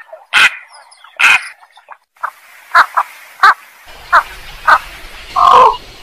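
Javan pond heron (blekok sawah) calls played as a lure: harsh croaking calls repeated again and again. Two loud calls come in the first second and a half, then a quicker run of shorter calls, and a longer call near the end.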